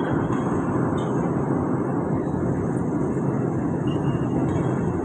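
Steady, low-pitched cabin noise of an airliner descending to land: the even rush of engines and airflow heard from inside the cabin.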